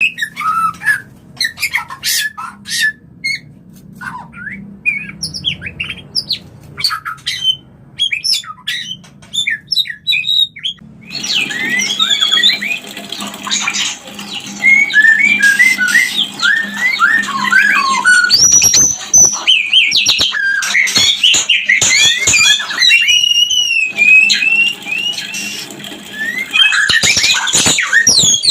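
White-rumped shamas (murai batu) making their mating calls: sparse short chirps and whistles at first, then from about eleven seconds in a louder, denser run of rapid whistled phrases with many down-slurred notes.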